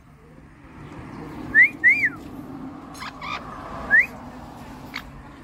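Short whistles traded back and forth with a pet parrot: three clear whistles. The first and last slide upward, and the middle one rises and then falls.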